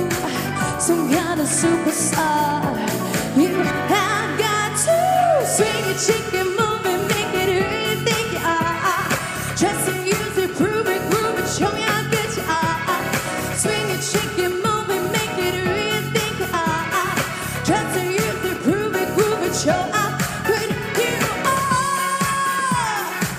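A pop song performed live: a woman singing over musical accompaniment with a steady beat.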